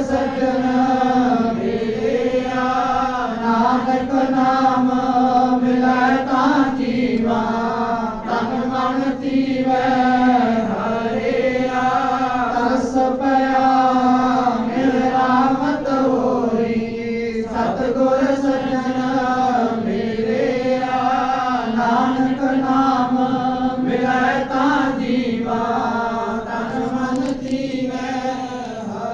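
Devotional Sikh chanting of Gurbani, a voice singing repeating melodic phrases over a steady held pitch, beginning to fade near the end.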